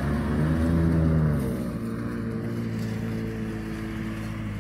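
Toyota Tacoma TRD Off-Road pickup's engine under load in sand, revving. About a second and a half in it eases off and falls in pitch, then runs steadily at lower revs.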